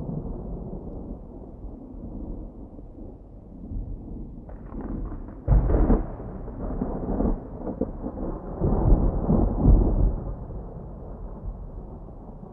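Thunder: a low rolling rumble that breaks into a sharp, loud clap about five and a half seconds in, rolls on in a second loud peal a few seconds later, then dies away.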